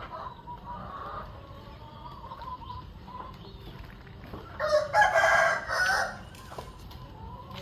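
A rooster crows once, loudly, about halfway through, over hens clucking softly.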